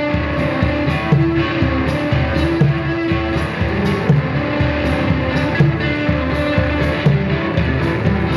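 Electric guitar playing a repeating pattern of short notes over a steady percussion beat: a live guitar and percussion duo.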